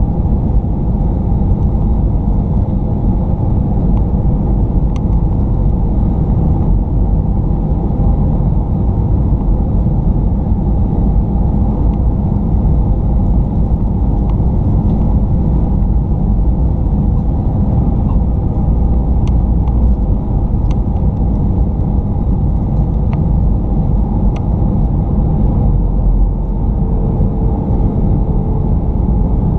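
Steady cabin noise of a jet airliner in flight: a loud, even, low rumble of engines and airflow. A few faint ticks are scattered through it, and a faint steady hum joins in near the end.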